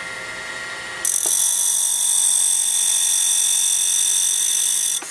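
Home-built end mill grinder running as an end mill is passed along the abrasive wheel. About a second in, a loud, high-pitched steady hiss with whistling tones starts suddenly, and it cuts off just as suddenly near the end.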